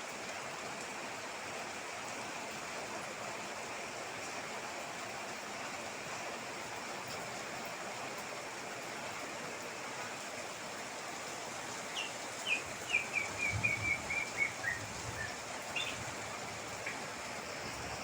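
Heavy rain pouring steadily. About two-thirds of the way through, a bird gives a fast run of about a dozen short notes that step down in pitch, then two more single notes a little later.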